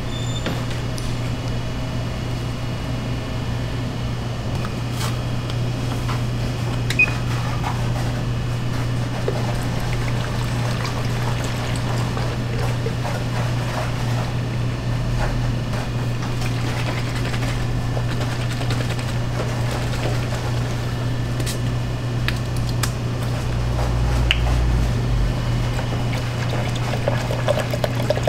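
Liquid poured into a plastic measuring jug over a steady low machine hum, with a few light clicks and knocks. The pouring is busiest near the end.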